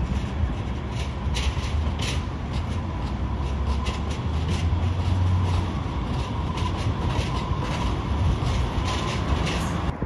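Streetcar running along street rails: a steady low rumble with a thin steady whine over it and scattered clicks.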